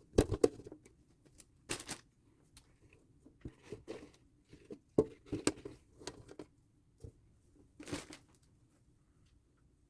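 Irregular rustling and crinkling of paper bedding with a few light knocks as hands work in a mouse tank, dying away about eight seconds in.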